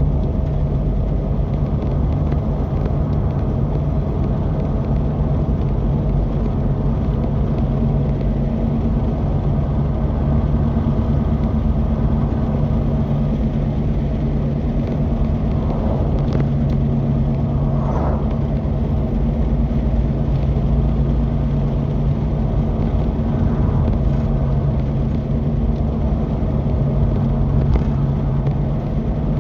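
Side-by-side UTV engine running at a steady speed, a constant low drone over a wash of driving noise.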